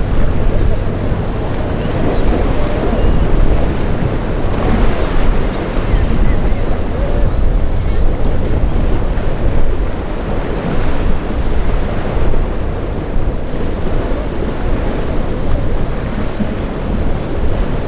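Wind buffeting the microphone over rough, breaking surf and the churn of a motor yacht's wake: a loud, steady rushing noise that swells and eases, heaviest in the low end.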